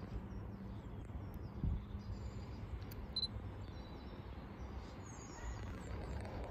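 Quiet outdoor ambience: a steady low rumble of wind on the microphone, with a few short, faint bird chirps.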